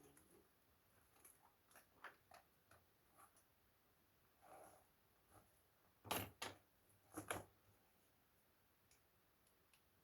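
Scattered small clicks and knocks of laptop parts being handled during disassembly, with two louder knocks about six and seven seconds in, over a very quiet background.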